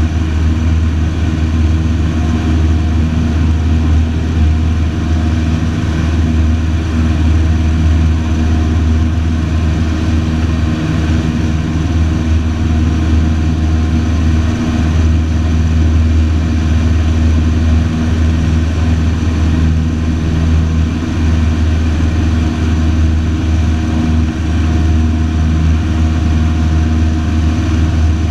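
Single-engine light aircraft's piston engine and propeller droning steadily in flight, heard from inside the cockpit.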